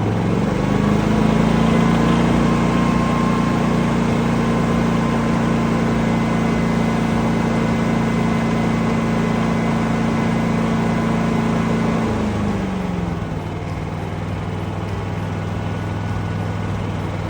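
Predator 11,500-watt inverter generator running with no load. Its engine speeds up just after the start, holds a higher steady speed for about twelve seconds, then drops back to a lower idle, the change in speed that the eco-mode throttle setting controls.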